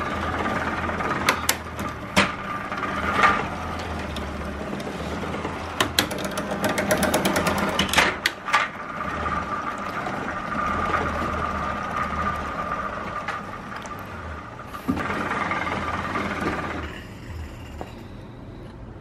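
Homemade velomobile's chain drivetrain turning on the stand: the chain runs steadily over the chainring and front derailleur with a constant whine, broken by sharp clicks and a quick rattle of clicks as the front derailleur is shifted. It runs quietly and smoothly. It fades out near the end.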